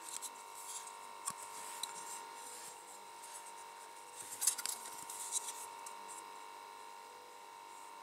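Grey plastic chassis of a toy bulldozer kit handled and turned in the hands: light plastic clicks and rubbing, with a denser cluster of sharp clicks about halfway through, over a steady faint hum.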